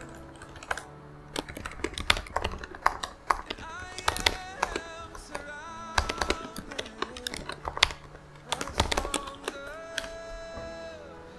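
Typing on a laptop keyboard: quick, irregular keystroke clicks as a message is written, over soft background music with held notes.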